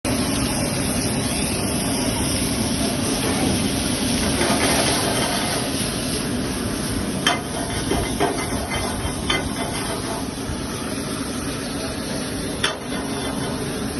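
Food sizzling and frying on a hot cooking surface, a steady hiss, with a few sharp metal clinks of a utensil striking the pan or griddle, the clearest about halfway through and again near the end.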